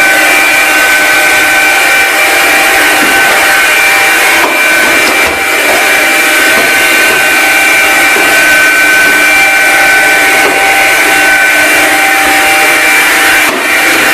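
Hoover Linx cordless stick vacuum running steadily, its motor giving a constant high whine over a rushing hiss, with two brief dips in level.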